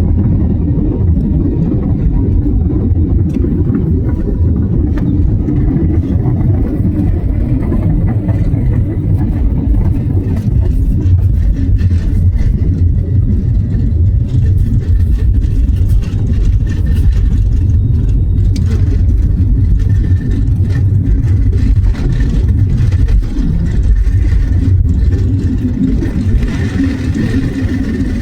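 Jet airliner taking off: a loud, steady rumble of the engines at takeoff power, with a faint high whine above it.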